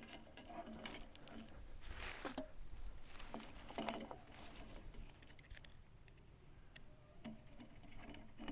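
Faint scattered clicks, taps and rustles of hands fitting small hardware to a diesel air heater's exhaust pipe and muffler.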